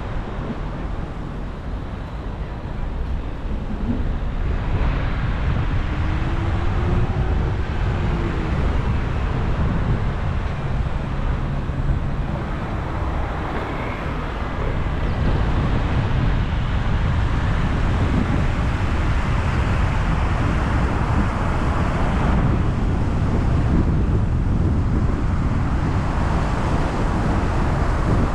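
Steady road noise from a car driving on a highway: tyres on the road surface and wind rushing past. It grows a little louder and brighter after about five seconds.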